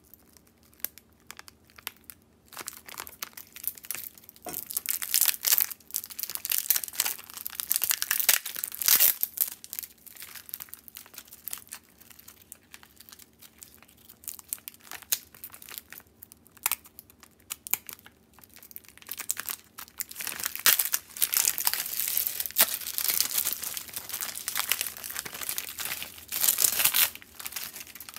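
Thin clear plastic film crinkling and tearing as it is pulled open and peeled off a frozen ramen block. It comes in spells, busy in the first third and the last third with a quieter stretch between.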